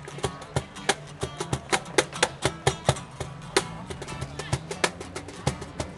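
Acoustic guitar strummed with a Meinl cajón slapped by hand, the cajón striking a quick, busy rhythm of several hits a second over the steady guitar chords. An instrumental passage with no singing.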